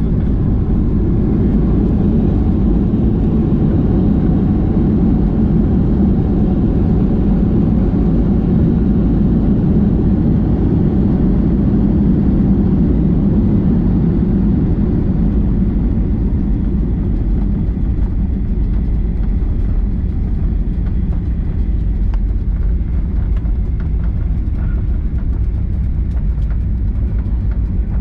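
Steady roar inside the cabin of a Boeing 737-800, from its CFM56-7B jet engines and the airflow, easing slightly about halfway through.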